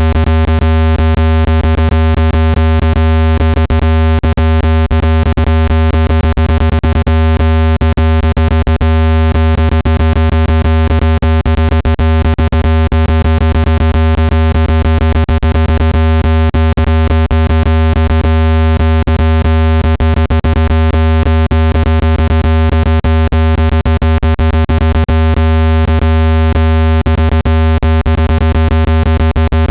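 Steady low electronic tone with a buzzy stack of overtones and a rapid, irregular crackle running through it. It is a speaker water-eject tone, played at full volume so its vibration pushes trapped water out of a phone speaker.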